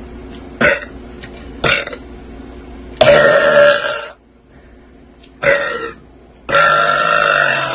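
A girl burping loudly several times without having drunk any soda: short burps at first, a long one about three seconds in, a short one, and another long one near the end.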